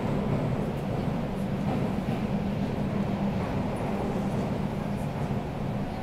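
Underground metro train running steadily: a continuous, even low noise of the train on the rails.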